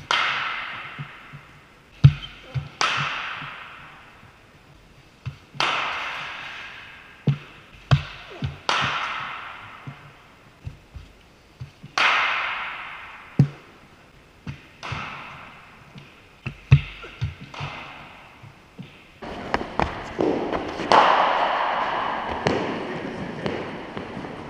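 Sharp knocks of cricket bats striking balls and balls thudding onto the floor and nets, a dozen or so at uneven intervals, each with a long echo in a large indoor net hall. About three quarters of the way through the knocks crowd together into a denser, more continuous clatter and echo.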